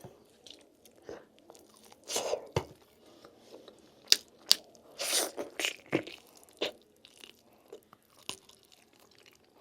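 A person biting and chewing lamb meat close to the microphone: irregular crunching bites and mouth sounds separated by short pauses.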